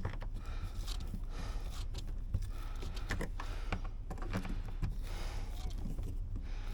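Faint work-handling noises: scattered light clicks, small knocks and rustling over a low steady background.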